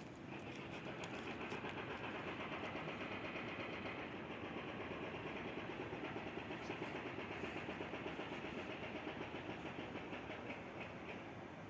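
Passenger train hauled by an EP2K electric locomotive passing at speed, its wheels clicking over the rail joints in a fast, even clatter.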